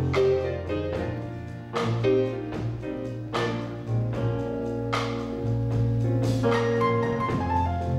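Live blues band playing, with piano chords struck over a sustained electric bass line and drums.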